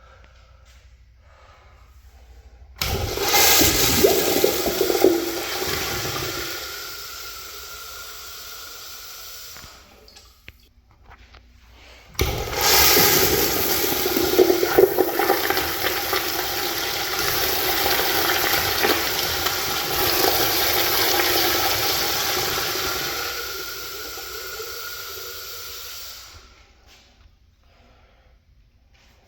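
Crane Plumbing restroom fixtures flushing twice. Each flush starts suddenly in a loud rush of water. The first tapers off after about seven seconds; the second starts about twelve seconds in and runs about fourteen seconds before stopping.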